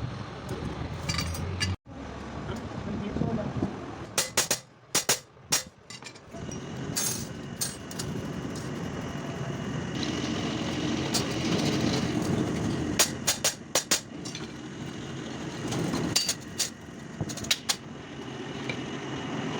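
Sharp metallic taps and clinks in short clusters from hand work on an old clutch plate, over background voices and a steady hum.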